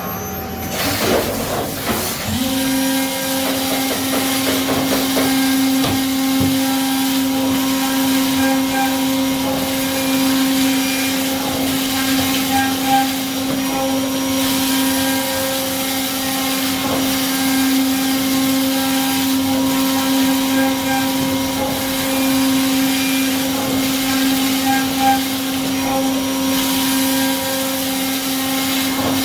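CNC milling machine running: about two seconds in, the spindle speeds up to a steady high-pitched whine that holds, over a steady machining noise.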